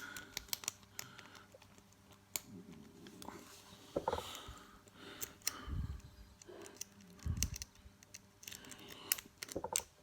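Small irregular metallic clicks and scrapes of a lock pick and tensioner working the pins in the keyway of a Master Lock padlock. There are two dull low thumps, about six and seven seconds in.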